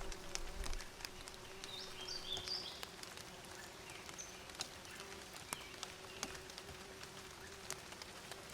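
Bees buzzing in a steady, wavering drone, with a bird giving a short run of high chirps about two seconds in. A brief low rumble sounds at the very start.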